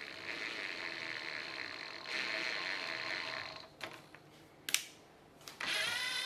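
Bench drill press motor running with a steady whine as its bit cuts into a brass trunk lid stay held in a vise. It gets louder about two seconds in and stops a little before four seconds. A few sharp clicks follow, then the drill runs again briefly near the end, its pitch falling as it winds down.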